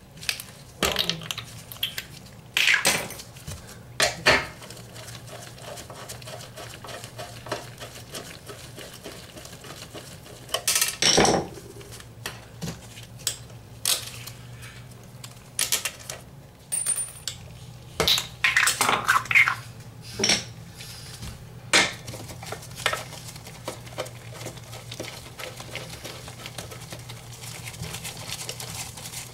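Metal hand tools clinking and scraping against a porcelain toilet base: a screwdriver prying the plastic cap off a floor bolt, then a socket wrench fitted onto the bolt's nut. Irregular clicks and scrapes, loudest about eleven seconds in and again around eighteen to twenty seconds.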